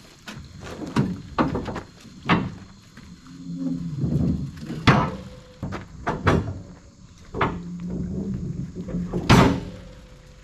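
A series of about ten irregular knocks and clunks, spaced a second or so apart, with a faint low hum between some of them.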